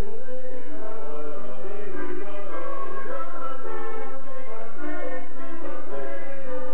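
Choir of men and women singing a hymn in harmony, with held notes moving from chord to chord.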